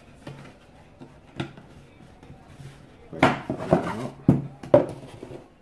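Cardboard watch box being handled and opened: the inner box is slid out of its outer sleeve. There is a single click about a second and a half in, then a burst of knocks and scraping about three seconds in.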